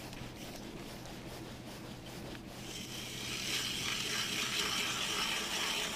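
Small spinning reel on an ice-fishing rod being cranked to bring up a hooked perch: a steady whirring hiss that starts about halfway through and grows a little louder.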